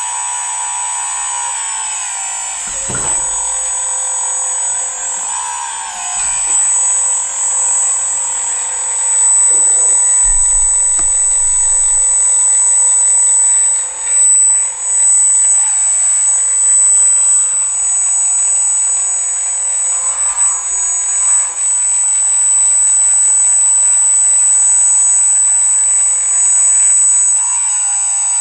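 Electric hydraulic pump of a radio-controlled Bobcat skid-steer loader model whining steadily, with a few brief dips and shifts as the loader arms and forks are worked.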